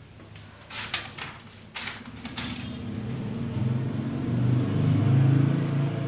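Marker pen writing on a whiteboard: a few short scratchy strokes in the first couple of seconds. A low rumble then builds and is the loudest thing near the end.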